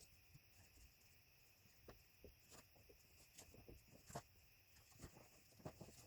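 Faint steady chirring of night insects, crickets, with a few scattered light knocks and scrapes, the strongest about four seconds in.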